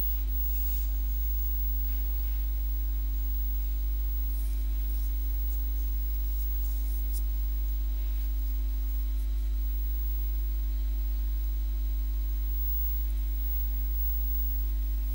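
Steady low electrical hum, with several fainter steady tones above it.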